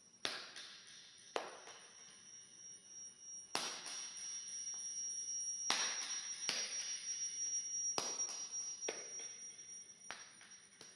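Microphone feedback through a computer and camcorder loop: a steady high whine underneath about eight sharp knocks at irregular intervals, each ringing out and fading.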